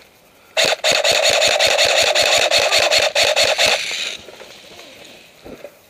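Airsoft gun firing a single full-auto burst of about three seconds, roughly seven shots a second over a steady mechanical buzz. It starts and stops abruptly.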